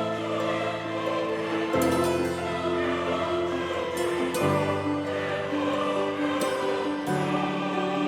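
Background music: slow sustained choral chords that change every two to three seconds.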